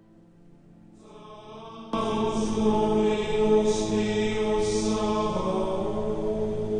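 Droning chant-like music. Faint sustained tones start to swell about a second in, and a much louder layer of held, chanted tones comes in suddenly about two seconds in and keeps going.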